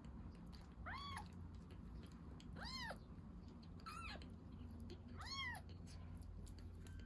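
Baby kitten mewing four times: short, high-pitched mews, each rising and then falling in pitch, spaced about a second or more apart. Faint soft clicks can be heard between them.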